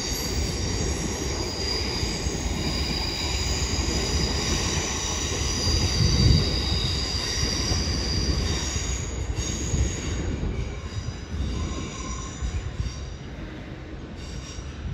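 Two coupled Class 350 electric multiple units pulling out over curved pointwork, their wheels squealing with several high steady tones over a low rumble. The sound fades in the last few seconds as the train draws away.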